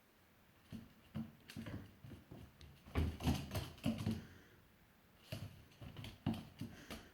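A dog and a cat scuffling, with irregular soft thumps and scrapes of paws and bodies on the floor and a louder flurry about three to four seconds in.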